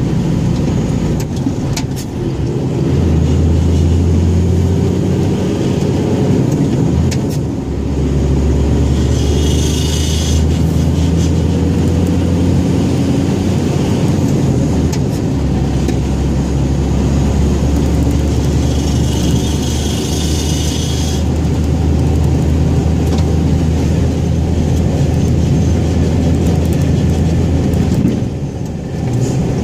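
Scania 114G 340 truck's 11-litre inline-six diesel engine running steadily and loudly under load, its low note shifting in steps with a few short dips in level. A high hiss comes in twice, near the middle.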